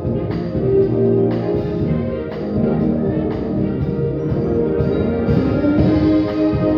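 Live school concert band playing a holiday medley, brass carrying held chords over regular percussion accents.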